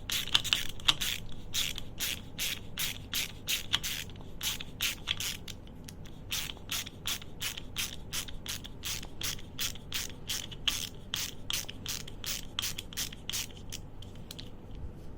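ANEX 307-D stubby ratchet screwdriver being worked back and forth, its pawl clicking finely over the 72-tooth ratchet in a steady rhythm of quick strokes, about three a second.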